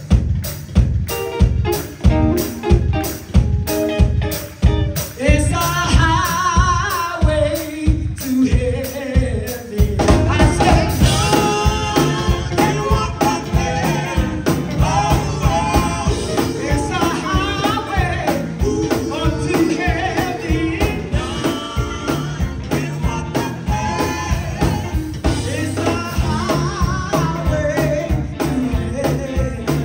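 Live gospel music: singers over a band of drums, electric bass and electric guitar. A steady drum beat carries the voices at first, and the full band comes in, fuller and denser, about ten seconds in.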